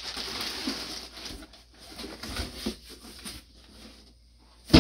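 Plastic packaging and clothing rustling as a jacket is handled, loudest in the first second and then in scattered quieter rustles. A single sharp knock comes near the end.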